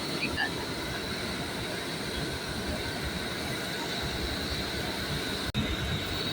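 Steady rumbling noise of a moving vehicle, with a faint constant high whine above it, broken by a split-second dropout near the end.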